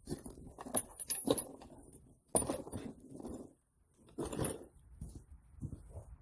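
Irregular metallic clinks and rattles of tools and metal parts being handled, with one sharp clank about two and a half seconds in.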